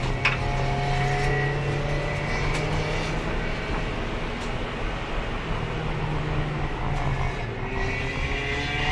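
Race car engine running at steady moderate revs, heard from on board, its pitch drifting only slightly. A sharp click comes about a quarter second in.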